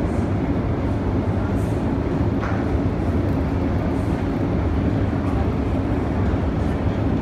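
Long subway escalator running: a steady low mechanical hum and rumble from its drive and moving steps.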